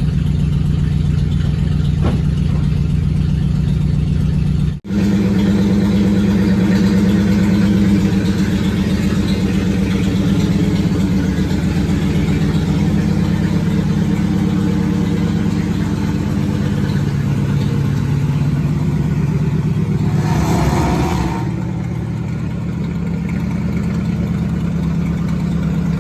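1954 Ford Customline engine running steadily as the car drives, with a brief dropout about five seconds in and a short hiss about twenty seconds in. On this drive the engine ran poorly, which the owner puts down to it not getting enough fuel.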